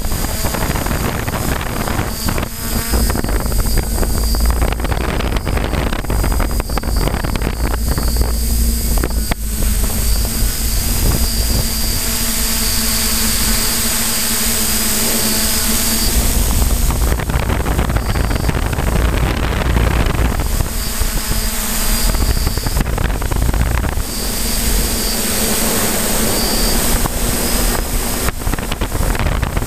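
F550 hexacopter's electric motors and propellers whining steadily as it flies, heard through the onboard GoPro, their pitch shifting now and then with the throttle. A heavy low rumble runs underneath.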